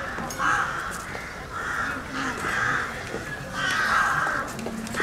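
Crows cawing: a run of harsh caws, each about half a second to a second long, coming one after another.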